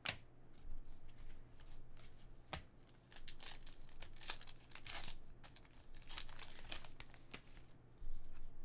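Baseball trading cards being flipped and sorted by hand, the cardstock sliding and flicking against itself in a run of short rustles and clicks.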